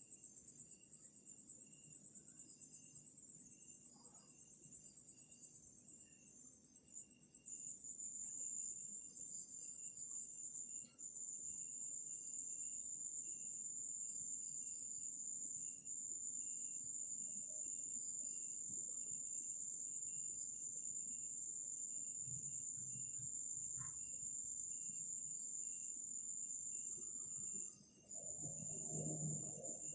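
Crickets chirping: a steady high trill with a lower, evenly pulsing chirp beneath it. Near the end a lower, muffled sound comes in for about two seconds.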